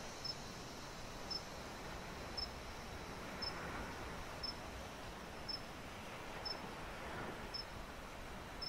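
A short, high chirp repeating steadily about once a second, from a small creature, over a steady outdoor hiss.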